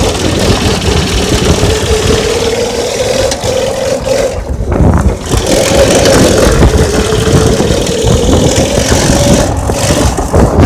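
Go-kart engine running while the kart is driven, heard from on board, its note wavering up and down with the throttle and dipping briefly about four and a half seconds in, with a steady rush of wind and road noise.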